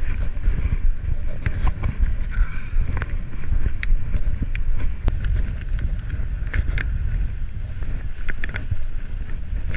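Wind buffeting the microphone of a cyclist's camera while riding: a steady low rumble, with scattered small clicks and rattles.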